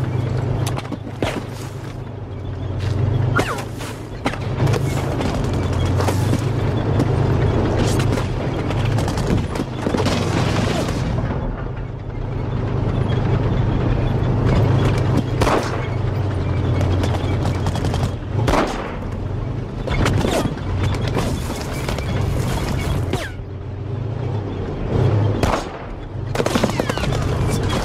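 War-film battle soundtrack: a steady low rumble under scattered gunshots and explosions. A few pistol shots ring out near the end.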